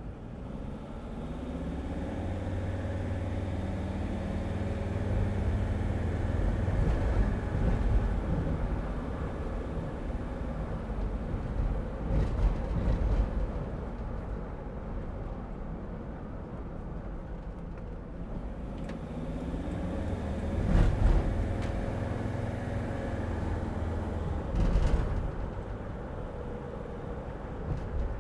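Cabin sound of a 2006 Mercedes Sprinter van driving in stop-and-go traffic: a steady low road and engine rumble, with the engine note rising as the van pulls away near the start and again about two-thirds of the way through. A few louder thumps come about midway and near the end.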